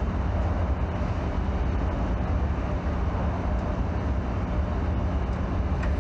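Steady low machinery rumble with a hiss over it, as of factory-floor ambience.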